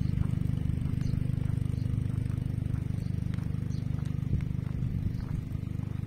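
Low engine rumble idling with a fast, even pulse, growing slightly fainter toward the end, with a few faint ticks over it.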